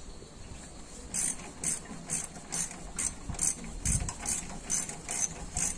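Ratchet wrench with a small socket on a front brake caliper bolt, its pawl clicking about twice a second as the handle is swung back and forth.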